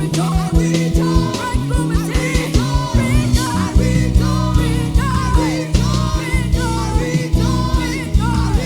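Live gospel worship band playing an upbeat groove, with regular drum hits, a steady bass line and a voice singing a wavering melody over it.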